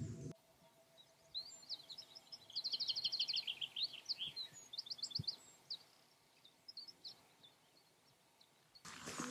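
Small songbird singing: short bursts of fast repeated high notes, with scattered single chirps, strongest about two and a half to three and a half seconds in and again around five seconds.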